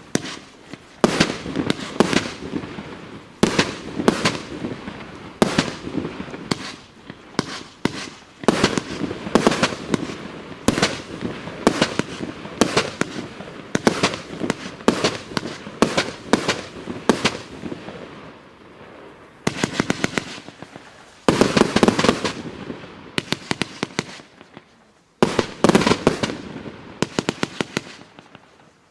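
Emperor Fireworks 'Guerrilla Warfare' 103-shot firework cake firing continuously: shot after shot of launches and aerial bursts in rapid volleys, with a brief lull near the end before another volley.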